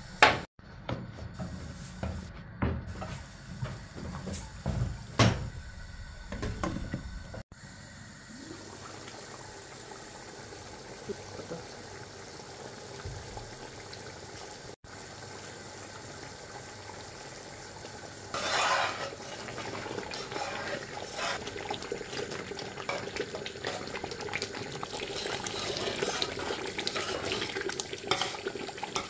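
Water running and splashing, with pots and utensils clattering and a few sharp knocks in the first seconds. The water grows louder and denser near the end.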